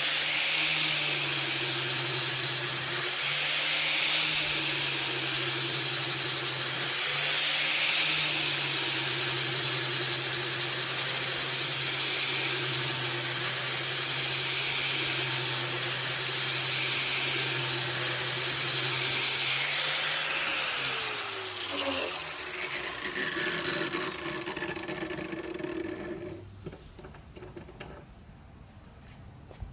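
Angle grinder grinding the edge of a steel Skag mower blade held in a sharpening jig, its motor note dipping briefly under load about 3 and 7 seconds in. Near 20 seconds it is switched off and winds down with a falling whine, leaving only faint sounds.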